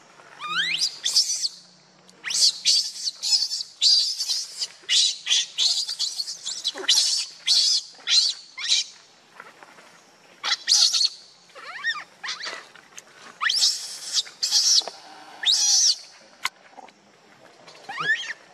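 Baby macaque screaming in a rapid string of shrill, high-pitched cries, many of them rising in pitch, with short gaps between bursts.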